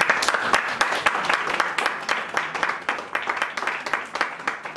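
Audience applauding: many hands clapping in a dense patter that thins out near the end.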